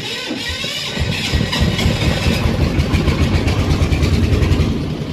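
A farm vehicle's diesel engine being electric-started. The starter whirs with a rising whine for about a second, then the engine catches and runs with a fast, heavy beat that grows louder and eases off slightly near the end.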